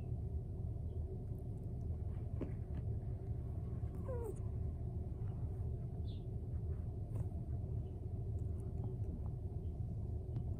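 Cat giving one short, faint falling chirp about four seconds in, over a steady low rumble.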